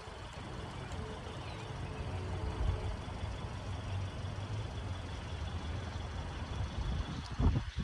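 Diesel locomotive engine running, a steady low rumble, with a short low bump near the end.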